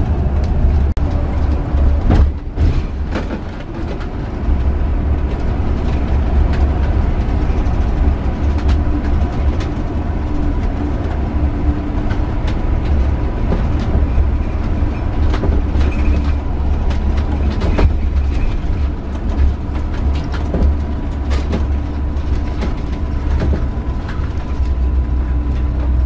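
Motorhome driving, heard from inside the cab: a steady low engine and road rumble with frequent rattles and knocks.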